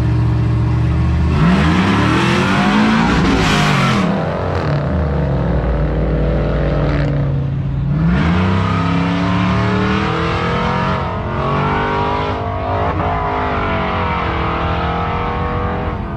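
A car and a pickup truck launch from a street-race start line: the engines rev hard and climb steeply in pitch as they accelerate away, about a second and a half in. Another engine climbs in pitch about eight seconds in, and then engines keep revving up and down as trucks drive back.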